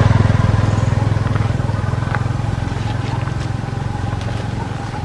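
A motor engine running with a low, even pulse, fading away gradually. A few faint clicks sound over it.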